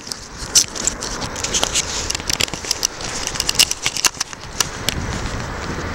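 A run of small crackling clicks and scrapes from a camera being handled and set in place on the bow of a dugout canoe, thinning out after a few seconds.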